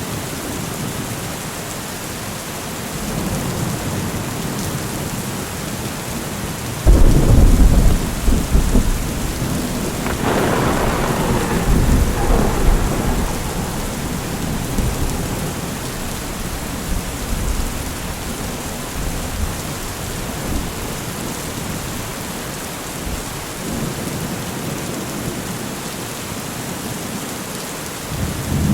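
Steady rain with a thunderstorm: a sudden loud clap of thunder about seven seconds in rolls into a long rumble that swells again a few seconds later and slowly fades. A fainter rumble comes near the end.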